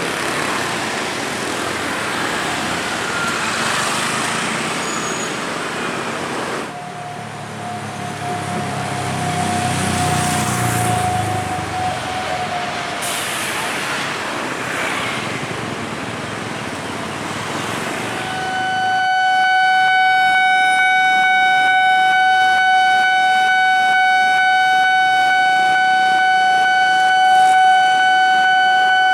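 Trains running through a railway level crossing: wheel and rail noise, with a locomotive's low engine note for a few seconds partway through. For the last ten seconds a train horn sounds one long, steady blast, the long horn signal (semboyan 35 panjang).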